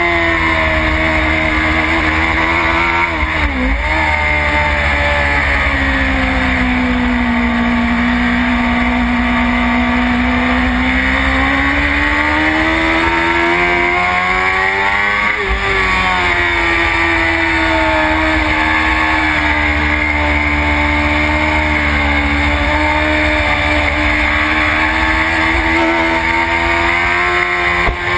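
BMW S1000RR superstock's 999 cc inline-four engine at racing speed, heard from a camera on the bike with wind rush. The engine note drops sharply about three and a half seconds in, runs lower through the middle, rises again about fifteen seconds in, and then holds high.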